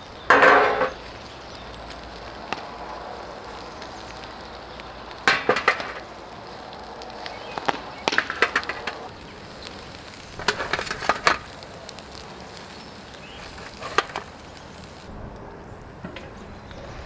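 Cooking sounds: a steady low hiss with five short bursts of clattering from utensils on cookware. The first burst, near the start, has a brief ring.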